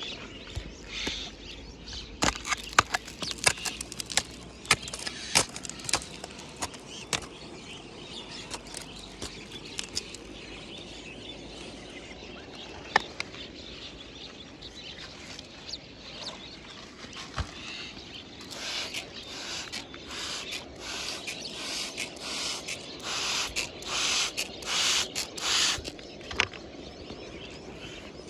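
Metal scraper blade scraping and chipping at damp clay and gravel in an earth bank, with loose dirt pattering down. Sharp scrapes and clicks come thick for the first several seconds, then ease off; in the last third a run of a dozen or so quick, even scraping strokes is the loudest part.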